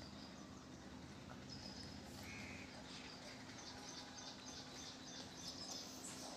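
Faint background sound: a bird chirping in a quick, even series of short high notes, about three a second, for a few seconds in the middle, over a steady low hum.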